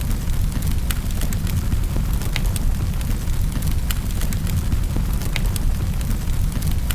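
Wood fire burning in a fireplace: a steady low rumble with sharp crackles and pops scattered through it, several a second.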